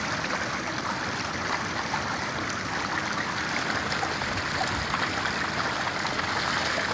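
Steady rush of water with many small, quick splashes from trout crowded against a fish-grading grid and thrashing at the surface.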